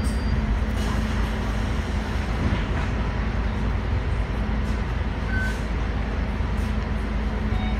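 Scania K310UD double-decker bus's five-cylinder Scania DC9 diesel idling steadily while stopped at a bus stop, heard from inside the bus's upper deck.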